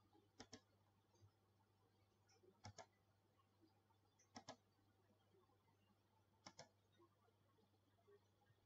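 Computer mouse button clicked four times, each a quick press-and-release double click, about every two seconds.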